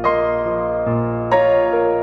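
Soft background piano music: sustained chords with a few new notes struck in the two seconds.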